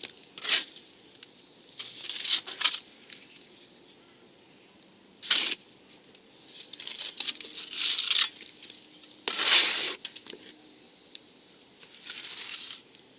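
Trowel scraping and spreading wet cement render, in irregular strokes about a second long with short pauses between.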